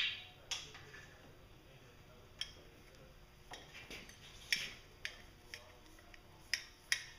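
Irregular sharp metal clicks and taps, the loudest right at the start, as the hose fitting of a gearcase pressure tester is handled and attached to an outboard lower unit.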